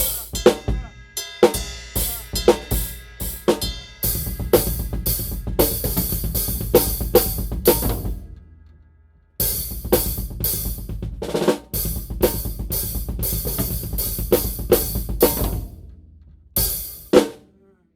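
Acoustic drum kit played in a small untreated storage room, with cymbals ringing over the beat. The playing stops about eight seconds in and rings down, starts again about a second later, and ends with a single hit near the end that is left to ring out.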